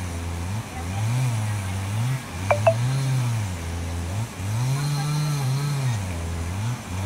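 An engine revving up and falling back in repeated swells, with two sharp clicks about two and a half seconds in.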